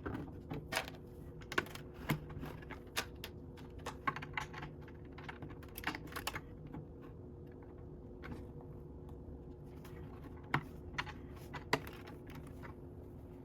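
Plastic Lego bricks clicking and tapping as pieces are handled and pressed onto a plate: irregular small clicks, busiest in the first half, then sparser with a couple of sharper snaps near the end.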